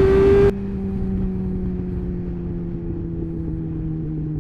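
Sportbike engine revving high under acceleration, cutting off sharply about half a second in as the throttle shuts. It then runs on steadily, its pitch slowly falling as the bike slows.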